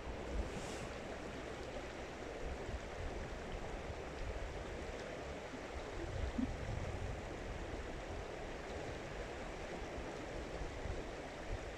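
Steady rushing of flowing water, with wind buffeting the microphone in irregular low gusts.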